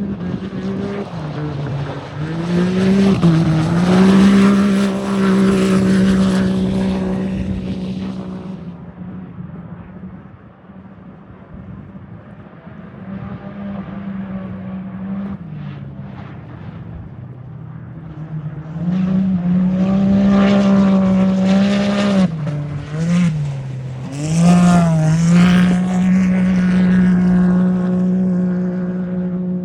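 Off-road race UTV engines running hard as they go by, loud twice: once near the start and again in the second half, with quieter engine sound in between. During each loud stretch the engine note drops briefly, as if lifting off, then comes back up and holds steady at high revs.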